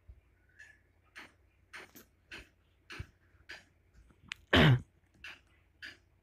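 A person's short breathy throat and mouth noises, about one every half second, with one louder throat-clearing sound about four and a half seconds in.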